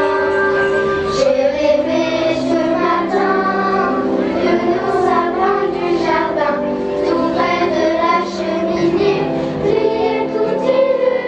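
Children's choir singing a song, with notes held and changing every second or so.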